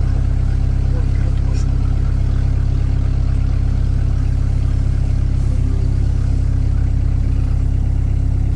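All-terrain vehicle's engine heard from inside the cab, running loud and steady as it drives slowly.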